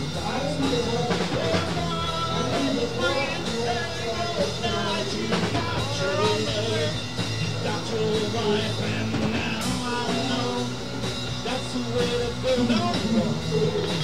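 Background rock song with singing over a drum kit and guitar.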